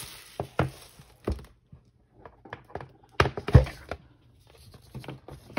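Hands handling a cardboard notebook box as its lid is lifted off: scattered light taps and rustles, with a few louder thumps about three and a half seconds in.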